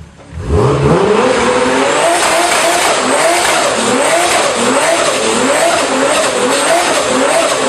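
Car engine revving up sharply, then held at high revs with its pitch swinging up and down about once a second, over a steady screech of tyres.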